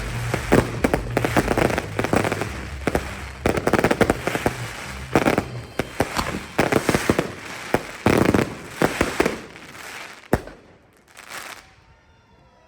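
Fireworks finale: a dense run of crackling and bangs with low booms for about ten seconds, thinning out, then one last sharp bang and a brief fading crackle before it dies away.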